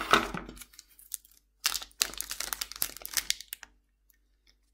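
Foil wrapper of a Magic: The Gathering booster pack crinkling as it is opened by hand, in a dense spell from about one and a half to three and a half seconds in. It is preceded by a brief clatter at the start as scissors are set down on the wooden table.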